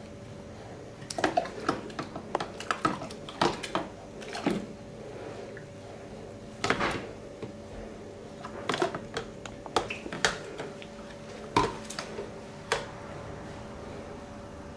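Scattered clicks and taps, in irregular clusters, as a baby handles and chews a plastic cup in a bubble-filled kitchen sink, with a faint steady hum underneath.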